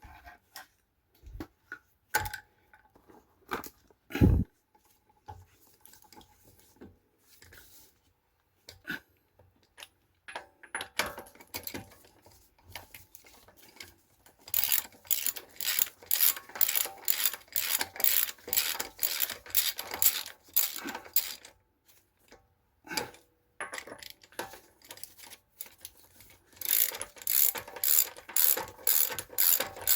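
Ratchet wrench clicking in quick, even runs, about three clicks a second, as it tightens wheel lug nuts. Before that, scattered metal clinks and a sharp knock about four seconds in.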